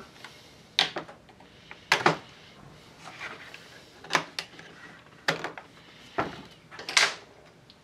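About six sharp clicks and knocks, spaced a second or so apart, from the air filter and cover being taken off a Stihl 021/023/025 chainsaw and the parts being handled and set down.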